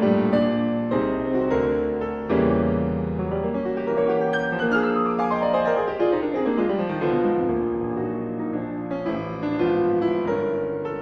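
Background piano music, with a run of notes descending from about four to eight seconds in.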